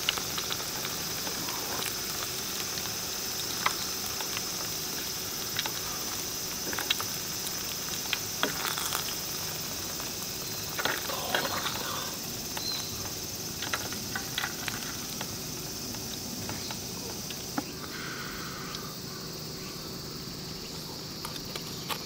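Hot oil sizzling steadily in a mess tin of deep-frying pieces, with occasional light clicks of metal chopsticks against the tin, over a constant high chirring of insects.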